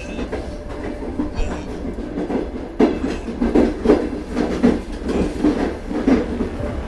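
O gauge toy train led by a red Lehigh Valley 627 diesel switcher running on three-rail track: a steady motor hum with rhythmic clicking of the wheels over the rail joints. It grows louder about three seconds in as the locomotive passes close by.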